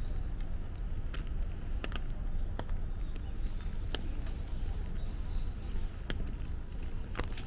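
Heavy rain falling steadily, with a sharp tap every second or so from larger drops striking close by.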